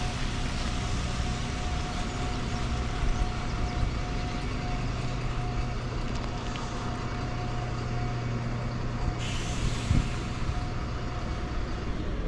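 Large vehicle running at a standstill with a steady hum, and a short hiss of air about nine seconds in, followed by a knock.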